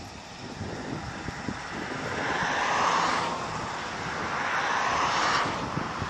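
Tracked John Deere S780i combine harvester working in wheat, heard across the field as a hissing drone. The drone swells twice, about halfway through and near the end, and drops off sharply each time.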